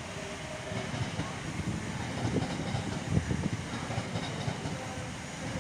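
Class 345 Aventra electric multiple unit arriving, with a steady rumble of wheels on track and scattered clicks and knocks from the rails.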